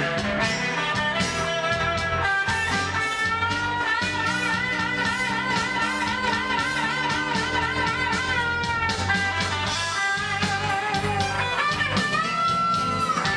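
Blues-rock band with electric guitar, playing steadily. Long held notes waver with vibrato, one from about three seconds in to about nine, and another near the end.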